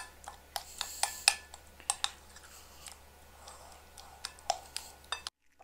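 A metal spoon stirring a thick yogurt marinade in a glass bowl: irregular light clicks and taps of the spoon against the glass, breaking off abruptly near the end.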